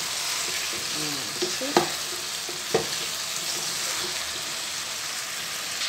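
Diced pumpkin and potato, with onion and leek, sizzling in olive oil in a stainless-steel saucepan over medium-high heat as they are stirred with a wooden spoon. Two sharp knocks come about a second apart, a little under two seconds in.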